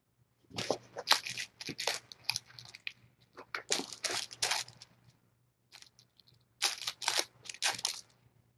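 A kitten scrabbling and clawing at the carpeted floor close by: scratchy, rustling scuffles in three bursts of a second or two each, the last starting near the end.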